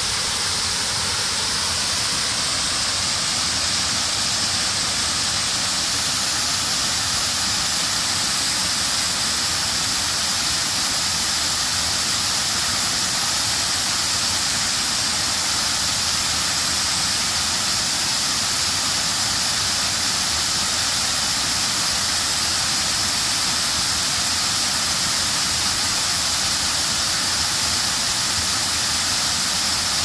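Water cascading over the stepped masonry spillway of a check dam and falling into the pool below: a steady, unbroken rush of falling water.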